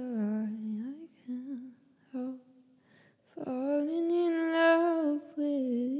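A woman humming wordless phrases: a gliding note, two short hums, then a long held note from about halfway through.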